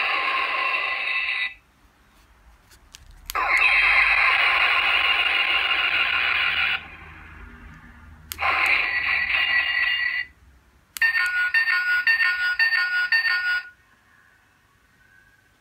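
Electronic sound effects and music played through the small built-in speaker of a DX Ultraman Nexus light-and-sound figure. There are four clips with short pauses between them, and the last is a quick run of repeated beeps.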